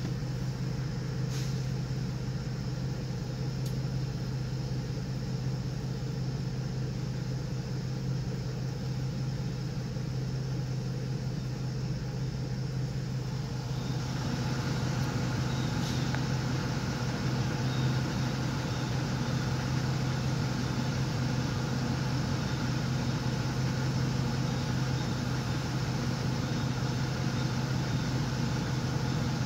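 Car engine idling steadily, heard from inside the car. About halfway through the sound gets a little louder and brighter.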